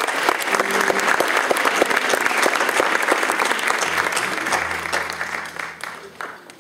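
Audience applauding, a dense run of clapping that fades away near the end.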